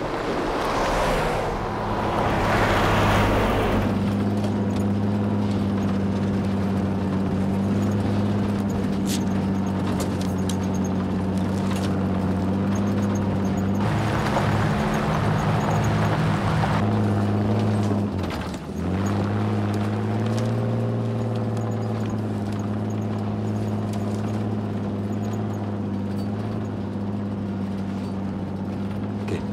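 Military utility vehicle's engine running steadily as it drives. Louder rushes of passing and tyre noise come in the first few seconds and again around the middle. After a brief dip the engine hum goes on, heard from inside the cabin.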